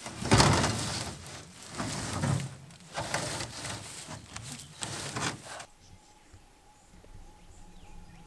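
A rusty corrugated-iron sheep shelter being lifted and shifted back into place: scraping, rattling and knocking in several bursts, the loudest about half a second in, stopping a little past halfway.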